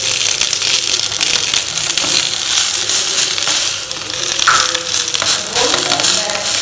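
Banana-leaf-wrapped rice rotis sizzling and crackling steadily on a hot stone griddle. In the second half the leaves rustle and crinkle as a hand presses and turns a parcel.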